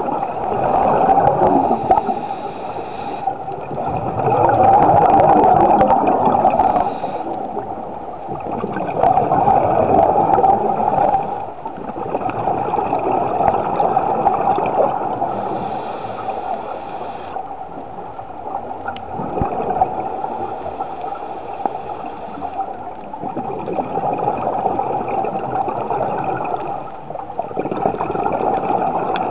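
Scuba diver's breathing underwater: exhaled bubbles from the regulator gurgling in swells every few seconds, with quieter stretches between breaths.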